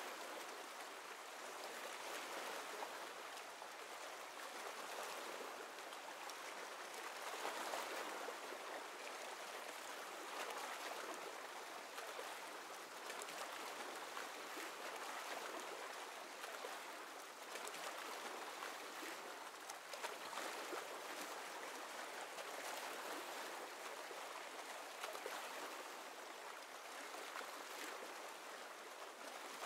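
Faint, steady rush of water, swelling gently every few seconds.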